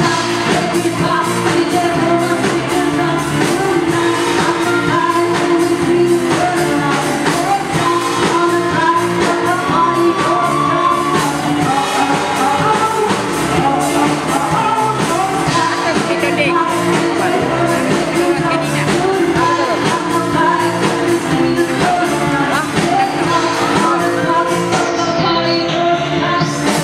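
Live pop band playing, with a female singer over drums and electric guitar.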